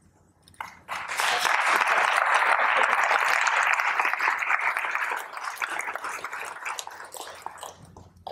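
Audience applauding, starting abruptly about half a second in and dying away over the last few seconds.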